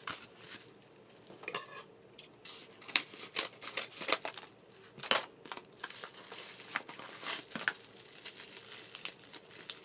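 Scissors cutting open a small yellow packet, with crinkling of the wrapping and irregular sharp clicks as it is handled and opened.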